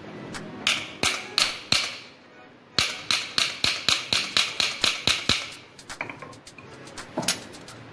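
Hammer blows on a Godrej semi-automatic washing machine's spin motor: four sharp strikes, a short pause, then a quick run of about a dozen strikes at roughly five a second. A single duller knock comes near the end.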